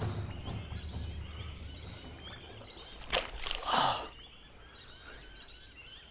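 Many birds chirping over a low rumble of wind and handling noise. A short loud burst of noise comes about three seconds in.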